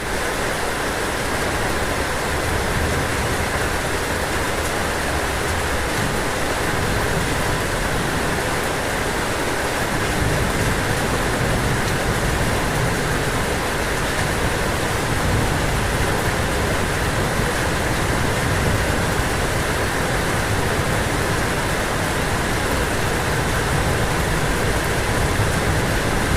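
Steady rain falling on a roof: an even, unbroken hiss with a low rumble that swells and fades underneath.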